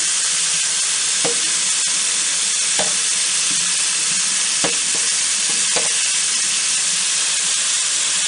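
Running tap water hissing steadily through wheat berries in a strainer, rinsing out fine particles of dirt. A few light knocks sound along the way.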